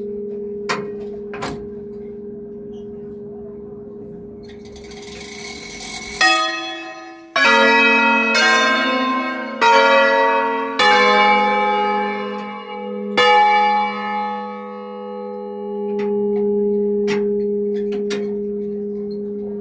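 Swung bronze church bells of a five-bell ring tuned in A-flat, heard close up from inside the belfry. A steady hum with a few knocks from the fittings gives way, about six seconds in, to loud strikes of the different bells roughly once a second. After about eight seconds the strikes stop and the ringing fades back into a long hum.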